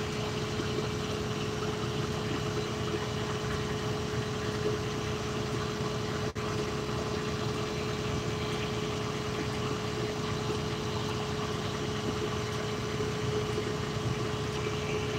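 Flatbed tow truck's engine idling steadily, with a constant hum. The sound drops out for an instant about six seconds in.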